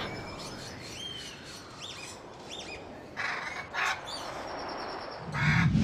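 Short whistled bird chirps, a few spaced calls, with two brief noisy bursts a little after three seconds in. Near the end a louder rushing noise with a low rumble sets in.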